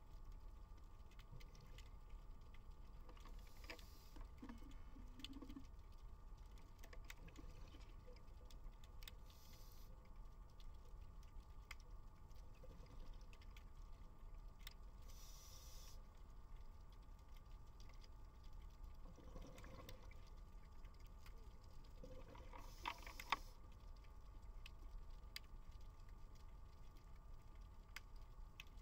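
Near silence: faint underwater ambience, a steady low rumble with scattered light clicks and one sharper click late on.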